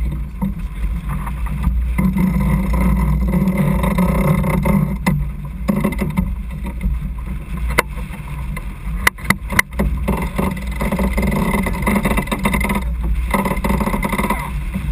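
Sailboat under sail: steady rush of wind and water along the hull, with a low rumble throughout. A few sharp knocks sound about five and eight seconds in, then a quick cluster of them just after nine seconds.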